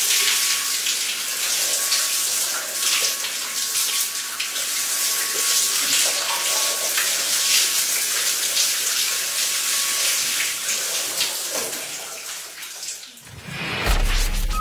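Water spraying and splashing steadily in a body-washing shower machine, with a faint steady whine through it. The spray fades out about 13 s in, and a deep bass sound starts just before the end.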